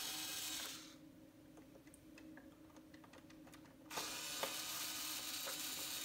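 Cordless electric screwdriver running in two spells as it backs out the Phillips screws holding a Roomba's cleaning head module. The first run stops just under a second in, and the second starts about four seconds in and continues.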